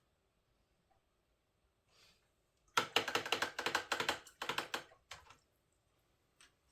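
A quick clatter of hard clicks and taps, starting nearly three seconds in and lasting about two and a half seconds.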